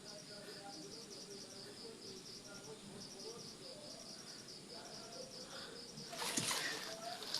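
Crickets chirping in a steady, evenly pulsing high-pitched rhythm. A louder rustle of movement starts about six seconds in.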